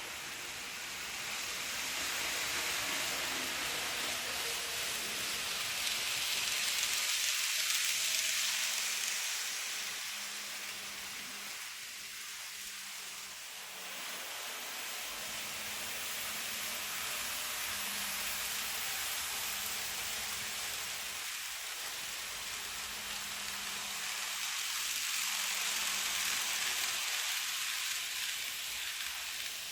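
N gauge model train of a 227 series set running on the layout track: a rushing hiss of wheels on rail with a faint motor hum. It swells and fades twice as the train passes close by.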